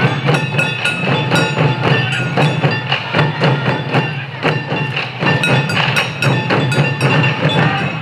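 Sansa odori festival music: a troupe of taiko drums beaten in a fast, even rhythm, with high pitched notes running over the beat.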